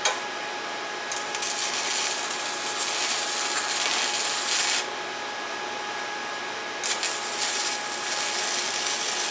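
Stick-welding arc on thin 1.6 mm exhaust pipe, a small rod at about 35 amps: a crackling, sizzling hiss from about a second in until nearly five seconds, then a pause of about two seconds, and the arc struck again near seven seconds. The weld is filling a keyhole burned through the thin pipe wall.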